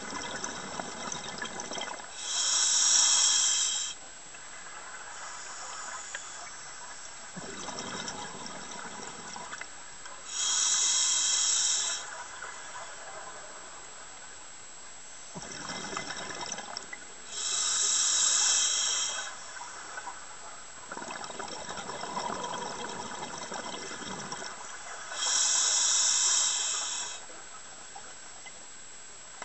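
Scuba diver breathing through a regulator underwater: four loud hissing inhalations through the demand valve, each lasting a second or two, alternating with gurgling bursts of exhaled bubbles.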